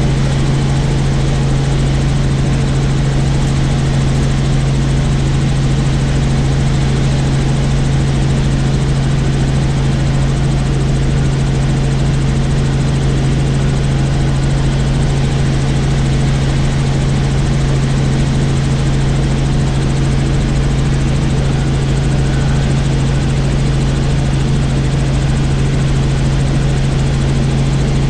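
Helicopter in steady flight, its engine and rotors making a constant loud drone with a strong low hum.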